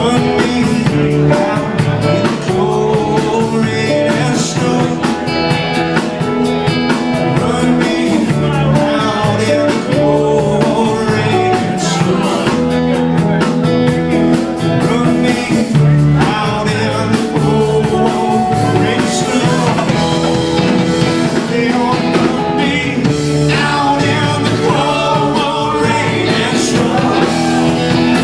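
Live rock band playing, with guitars over a drum kit keeping a steady beat on the cymbals.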